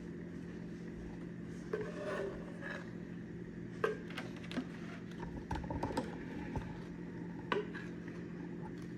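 Kitchen utensils scraping and knocking against a mixing bowl and baking pan as brownie batter is scooped and spread, in scattered irregular taps over a steady low hum.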